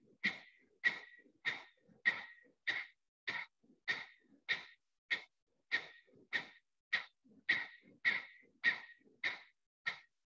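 Kapalabhati breathing: a woman's rapid, forceful exhalations through the nose, each a short sharp puff driven by a snap of the abdomen, a little under two a second in an even rhythm, with the passive inhalations between them nearly silent.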